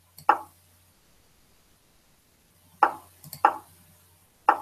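Short knock-like move sounds from an online chess program as moves are played, four in all: one just after the start, then three close together in the last two seconds.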